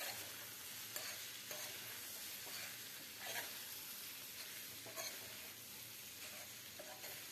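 Vegetable poha sizzling in a steel kadhai while a spatula stirs it, with a steady hiss and a scrape of the spatula against the pan every second or so.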